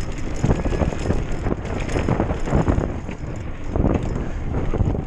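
Hardtail mountain bike rattling and clattering as it runs fast down a rough dirt trail, with steady wind rumble on the handlebar-mounted microphone.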